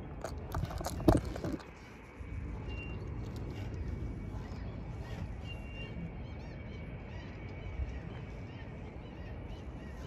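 A quick cluster of sharp clicks and knocks in the first second and a half, loudest about a second in, from the camera being handled and shifted on the concrete. Then a steady low outdoor rumble of wind and distant traffic, with a few faint high bird chirps a few seconds in.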